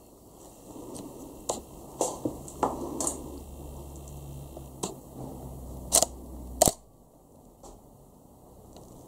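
Footsteps and scattered knocks and crunches on a debris-strewn wooden floor: a run of sharp knocks, the loudest two about six and six and a half seconds in, over a low rumble that stops suddenly after the last knock.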